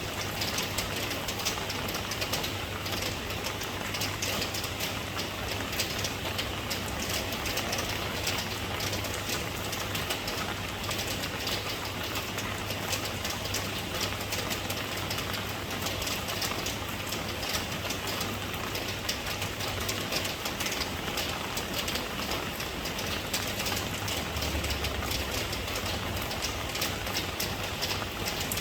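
Steady rain falling, a dense even wash of small drop impacts, over a constant low rumble.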